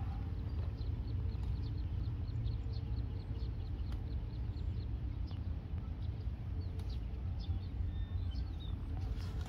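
A bird calling in a quick run of short high chirps, about four a second, for a few seconds, then a few scattered calls, over a steady low rumble.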